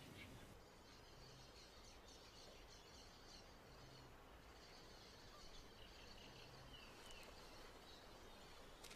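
Near silence: faint outdoor ambience with thin, high chirping.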